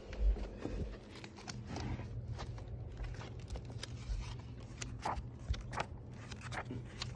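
Paper pages of a hardcover book being leafed through by hand: a run of short, quick rustles and page flicks. There is a soft low thump just after the start.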